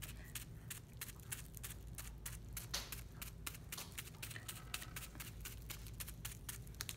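Folded bubble wrap loaded with paint being dabbed repeatedly onto paper lying on a table: a faint, irregular run of quick soft taps, several a second.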